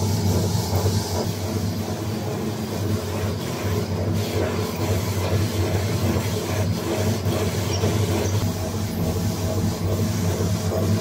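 Crinkle paper shredding machine running steadily: a constant motor hum with the rumble of its cutting rollers as paper sheets feed through, and a few faint clicks.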